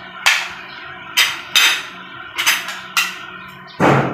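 Metal spoon clinking and scraping against ceramic plates while rice is scooped: a series of sharp, irregular clinks, with a heavier knock near the end.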